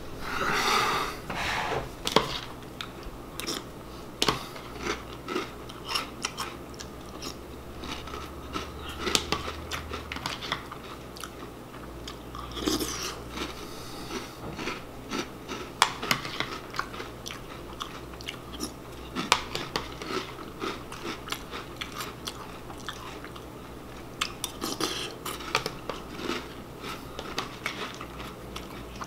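A person eating cereal with a metal spoon from a bowl: crunchy chewing and biting, with irregular sharp clicks of the spoon against the bowl.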